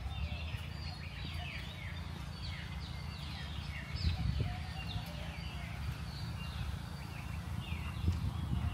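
Several birds calling: many short, overlapping chirps that fall in pitch, repeating throughout, over a low steady rumble.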